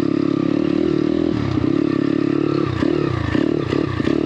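YCF Bigy pit bike's single-cylinder four-stroke engine running under throttle, heard from on board. The revs drop and climb again several times in the second half.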